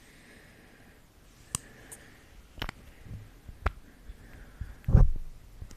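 Close-miked ASMR sounds: three or four sharp clicks about a second apart, then a louder low thump near the end.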